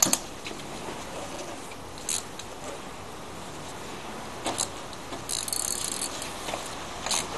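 Scattered clicks and knocks of hand tools, then a ratchet wrench clicking rapidly for about a second, as the number-one spark plug is taken out of a car engine.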